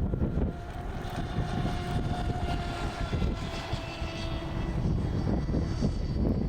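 Electric motor of a radio-controlled boat whining steadily at speed, with wind buffeting the microphone.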